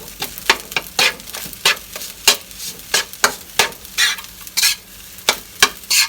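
Spatula scraping and knocking against a frying pan in quick, uneven strokes, about three a second, as rice and beaten duck egg are stir-fried over a steady sizzle.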